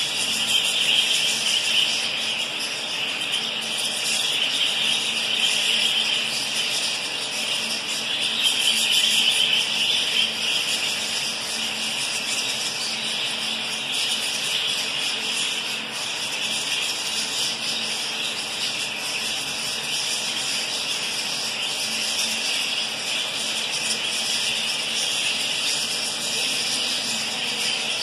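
A large flock of budgerigars chattering continuously, a dense high twittering, a little louder in the first ten seconds.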